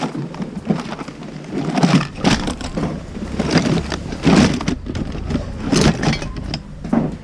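Plastic toys, CD cases and boxed items clattering and rustling irregularly as a hand rummages through a plastic tub, with a low rumble underneath from a few seconds in.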